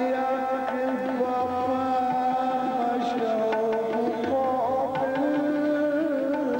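Male classical vocalist singing a ghazal in long held, ornamented notes that waver around each pitch, with tabla accompaniment.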